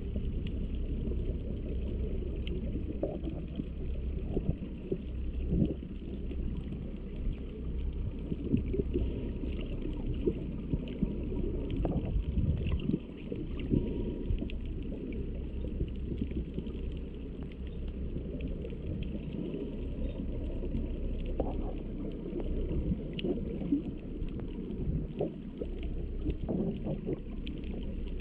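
Muffled underwater ambience heard through a camera's waterproof housing: a steady low rumble with scattered small knocks and gurgles.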